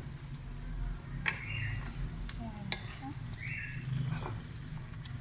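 Chicken karahi sizzling as it fries in oil in the wok, with a couple of sharp clicks. A short high chirp repeats about every two seconds.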